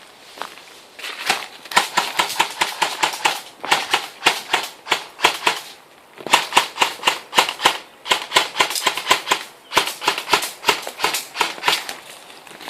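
Airsoft guns firing: sharp pops several times a second, in four strings with short pauses between them.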